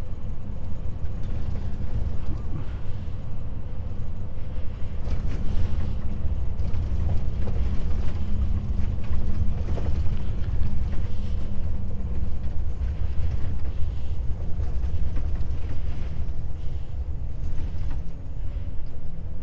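Diesel engine of a Volvo FH truck running steadily under way, heard from inside the cab as a low drone, with a few light creaks and knocks from the cab between about five and eleven seconds in.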